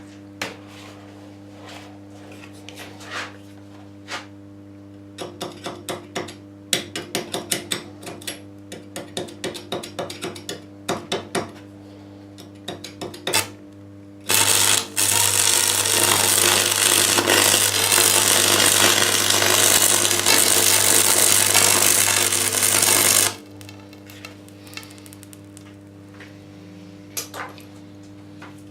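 Rapid clicks and taps of metal being handled for several seconds, then a welding arc hissing steadily for about nine seconds as the pipe is welded to the mounting plate, stopping abruptly. A constant low electrical hum runs underneath.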